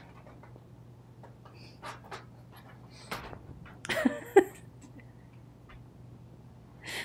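Soft scattered rustles and clicks over a faint steady hum, with a louder burst of rustling and a sharp knock about four seconds in, as a cat shifts on the couch cushions and the phone is moved.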